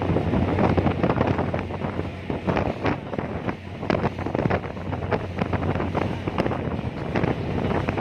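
Strong wind buffeting the microphone in irregular gusts, over the steady low hum of the car ferry's engine.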